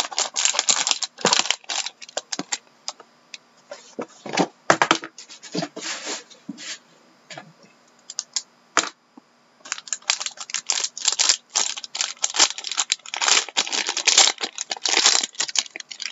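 Foil trading-card pack wrapper being torn open and crinkled, with the card box handled: irregular bursts of crackling and rustling, busiest over about six seconds near the end.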